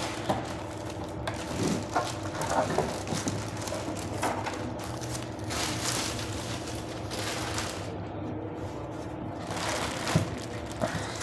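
Clear plastic bag crinkling and rustling in irregular bursts as it is pulled off a desktop barcode printer, over a faint steady low hum.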